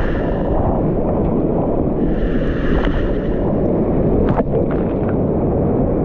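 Whitewater rapids rushing loudly around a kayak going down a steep creek drop, heard close up and muffled. A sharp splash comes about four seconds in as the boat plunges into the churning water.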